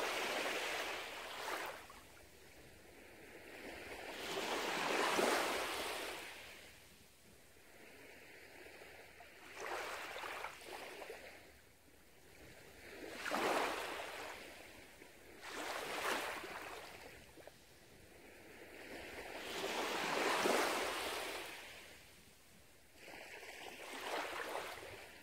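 Small waves washing up a sandy beach, a soft rush of surf that swells and fades about seven times, every few seconds.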